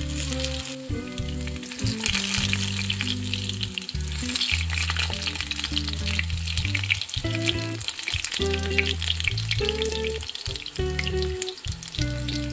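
Potato patties frying in hot oil in a pan, sizzling and crackling steadily as they are turned over with silicone spatulas. The sizzle swells for a few seconds about two seconds in.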